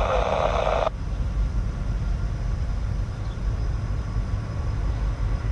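Diesel freight locomotive's air horn sounding and cutting off sharply about a second in, followed by the steady low rumble of the approaching train.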